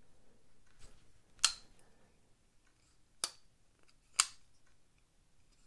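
Civivi Governor folding knife being flicked open and closed on its bronze-washer pivot: three sharp metallic clicks as the blade snaps against its stop, with a fainter click shortly before. The pivot is freshly tightened and feels a little less flickable.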